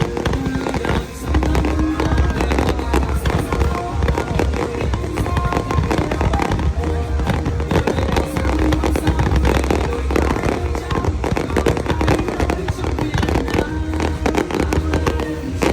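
Aerial fireworks going off in rapid succession, a dense run of bangs and crackles with a deep rumble beneath, while music plays.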